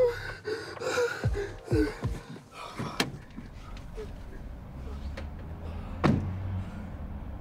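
A car door clicks open about three seconds in and slams shut about six seconds in, over a low steady rumble of the car.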